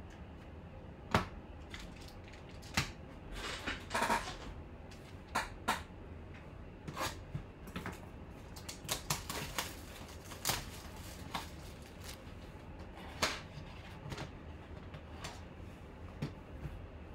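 Cardboard box of trading cards being handled and opened by hand: a scattered string of light taps, clicks and short rustles of cardboard, with a longer rustle about four seconds in and a quick run of clicks around nine to ten seconds.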